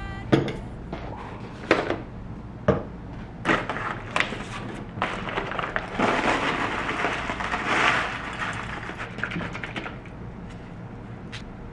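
A glass bowl with a spoon in it is set down on a table: a few sharp clinks and knocks. Then granola is poured from a paper pouch into the bowl, a rattling rush of dry clusters landing on strawberries that runs for about three seconds, with the paper bag crinkling.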